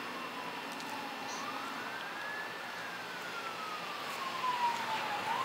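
Emergency-vehicle siren in a slow wail, its pitch sliding up and down, one rise and fall every few seconds.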